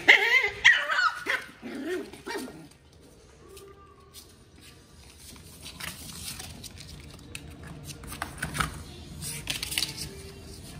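Puppies play-fighting, giving high yelps and whines in the first couple of seconds, then quieter scuffling with scattered faint clicks.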